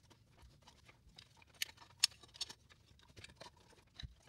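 Faint scattered clicks and light scrapes of a Macintosh SE's logic board and sheet-metal chassis being handled as the board is worked out of its frame, with a few sharper clicks around two seconds in.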